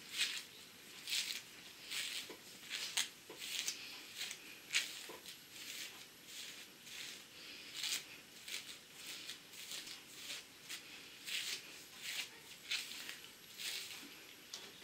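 A comb drawn again and again through long hair coated in a wet homemade mask, making faint scratchy swishes about once a second.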